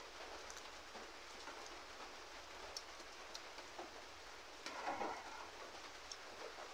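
Faint, steady rain on the roof, with small scattered ticks of drops. There is a brief louder sound about five seconds in.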